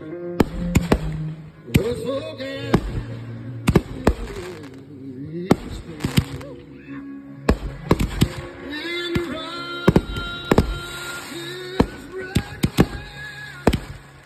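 Consumer aerial fireworks going off overhead: a string of sharp bangs and crackling reports at irregular spacing, at times several a second, with music playing under them.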